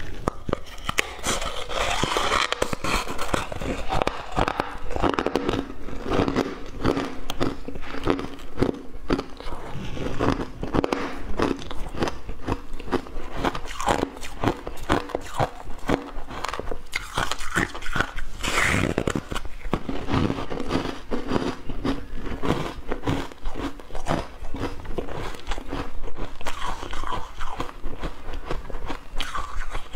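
Close-up biting and chewing of a block of refrozen ice: a continuous run of sharp crunches and cracks as the ice breaks between the teeth.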